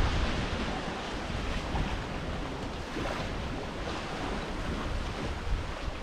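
Sea water rushing and lapping along the hulls of a sailing catamaran under way, a steady wash of noise, with some wind on the microphone.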